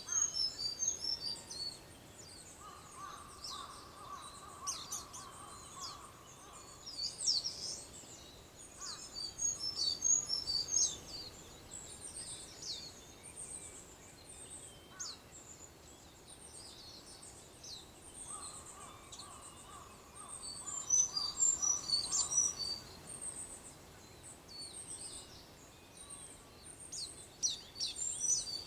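Wild songbirds singing at dawn: recurring bursts of high twittering and sharp chirps, with two long, steady, lower-pitched notes of a few seconds each, one a few seconds in and another after about eighteen seconds.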